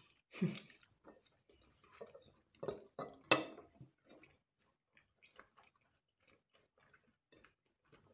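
Close-up eating sounds: spaghetti slurped and fried chicken chewed, with wet smacks and clicks. A few louder ones come in the first half, then the sounds turn softer and sparser.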